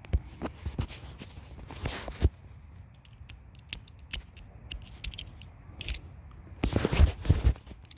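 Flathead screwdriver clicking and scraping against the fuse compartment of a plug while prying out a burnt cartridge fuse. Several small clicks in the first couple of seconds, then a louder bout of scraping and rattling near the end.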